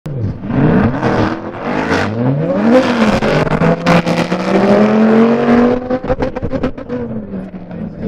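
Supercharged C8 Corvette V8 with a Corsa exhaust, driven hard: the revs swing quickly up and down, then climb in one long rising pull for about two seconds. Near the end the driver lifts off and the exhaust gives a rapid string of crackles.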